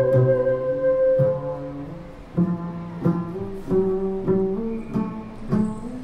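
Live improvised music: a held note ends a little after a second in. About two seconds in, a double bass begins a run of plucked notes, roughly two a second.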